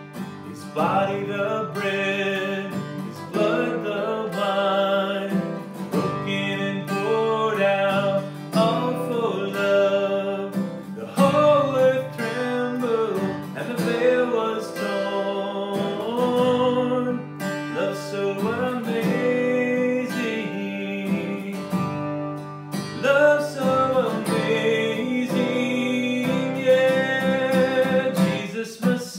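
A man singing a worship song while strumming chords on an acoustic guitar.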